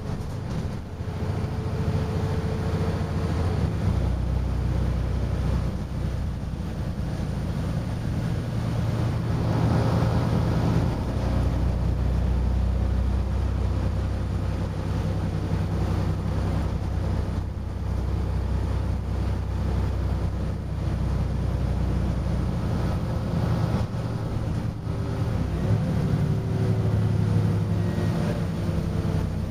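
Volvo B7RLE single-deck bus heard from inside the passenger saloon while under way: its diesel engine runs with a low drone that grows and eases as the bus changes speed, over steady road noise, with a faint whine now and then.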